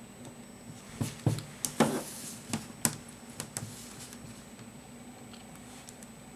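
Clear plastic ruler being handled and laid on a sheet of paper on a desk: a run of light taps and clicks with a brief scrape, over two or three seconds.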